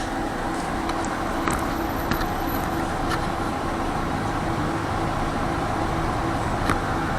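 City tram running along its track, heard from inside the car: a steady rumble and hum from the running gear and motors, with a few sharp clicks and knocks.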